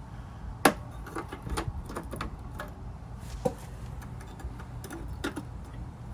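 Irregular sharp clicks and light metal knocks as a cut sheet-metal patch piece is handled and set in place, the loudest about two-thirds of a second in, over a steady low hum.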